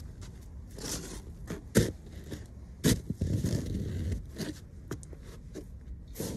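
Snow shovel scraping and crunching into packed snow, with two sharp knocks of the blade about two and three seconds in, the loudest sounds, followed by a stretch of rough scraping.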